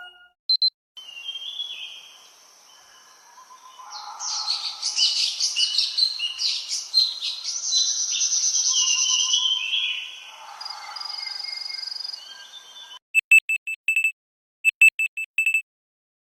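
A birdsong ringtone from a Fly IQ430 Evoke phone, with recorded bird chirps and warbling trills for about twelve seconds. It is followed by a different tone of two quick runs of short, high electronic beeps, which stop before the end.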